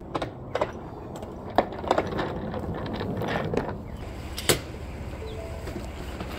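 Hard wheeled range suitcase being handled at a pickup truck's bed: a string of knocks and clatters, the sharpest about a second and a half in and again at about four and a half seconds, over a low steady rumble.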